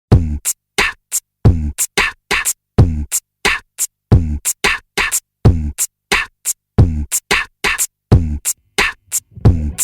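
Music: a choppy electronic beat of short, separate drum-machine hits with silent gaps between them, a deep kick coming round about every 1.3 seconds.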